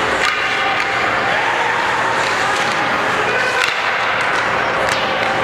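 Ice hockey play in an indoor rink: skates scraping on the ice and a few sharp clacks of sticks and puck, over a steady murmur of crowd voices.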